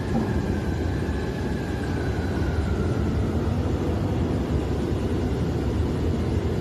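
Steady low rumble of running machinery, with a faint high tone sliding slowly downward in the first couple of seconds.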